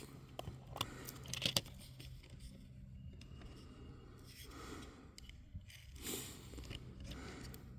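Faint, scattered small clicks and scrapes of .22 LR cartridges being handled and loaded into a rifle magazine.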